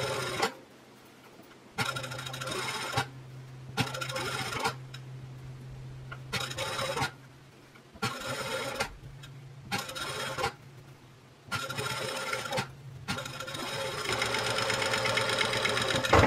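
Juki industrial single-needle lockstitch sewing machine stitching in about seven short runs with brief stops between them, the last and longest run over the final three seconds. It is topstitching a seam about 2 mm from the edge to set it. A steady low hum sounds underneath throughout.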